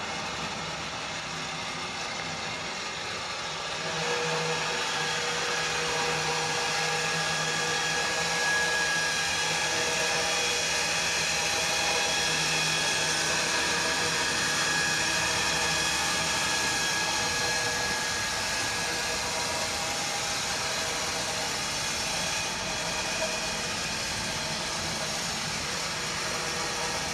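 Powered motorcycle loader on a pickup truck running steadily as its deck lowers two motorcycles to the ground, a motor whir that gets louder about four seconds in.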